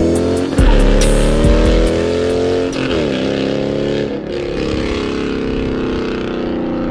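Car engine accelerating hard through the gears: its pitch climbs and drops back at each upshift, about half a second, three and four seconds in, then holds fairly steady.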